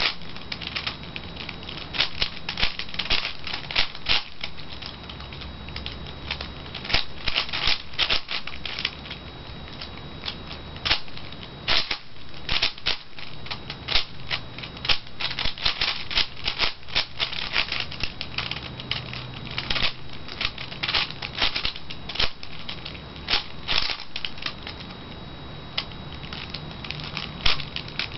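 A V-Cube 5 (5x5 puzzle cube) being turned quickly by hand: rapid plastic clicking of its layers in irregular flurries with short pauses between them.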